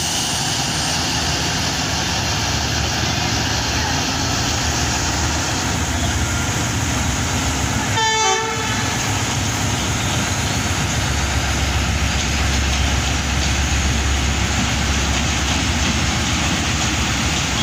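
ZCU-30 diesel-electric locomotive running as it hauls a passenger train past, its low engine rumble growing louder in the second half as it comes alongside. A short horn blast sounds about eight seconds in.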